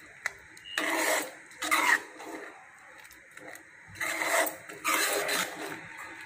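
A steel ladle stirring thick cabbage and lentil kootu in a steel pan: four short strokes through the thick mixture, in two pairs about a second apart.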